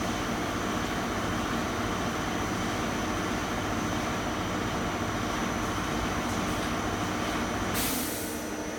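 CNC machine running steadily: a dense mechanical rumble with a faint high whine. About 8 s in comes a short hiss, after which the running noise drops a little.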